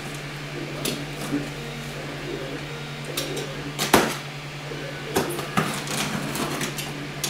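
Cardboard box being handled while its packing tape is slit with a utility knife: scraping and rustling of cardboard, with a sharp knock about four seconds in as the box is turned over. A steady low hum runs underneath.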